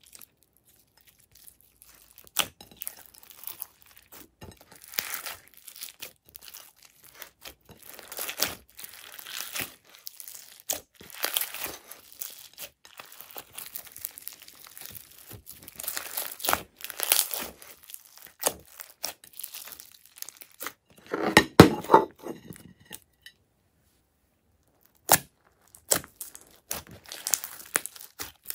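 Hands squeezing, stretching and pressing glossy slime mixed with foam beads, giving irregular sticky crackles and pops. The loudest, fullest stretch comes about three quarters through, followed by a short pause.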